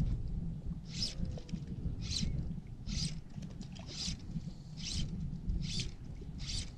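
Fly line being stripped in by hand during a retrieve, about seven short hissing zips roughly one a second, over a low steady rumble.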